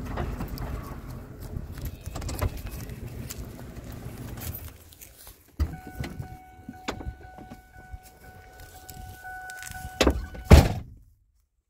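A pickup truck moving slowly across a pasture with a low rumble. Then a steady, high whine holds for about four seconds, and two loud thumps follow near the end.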